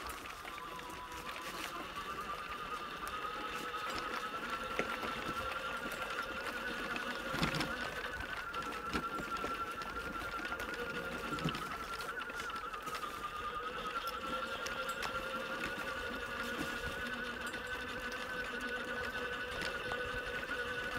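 Wheelchair trike's drive motor whining steadily as it rolls along a rough woodland path, its pitch wavering slightly with speed. Occasional knocks from the trike jolting over the ground, the loudest about halfway through.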